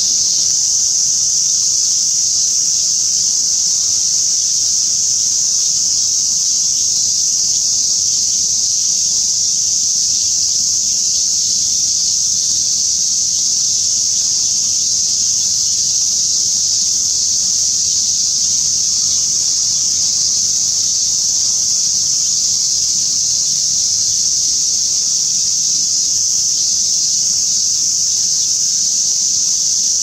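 A steady chorus of insects: an even, unbroken high-pitched buzz that holds at the same level throughout.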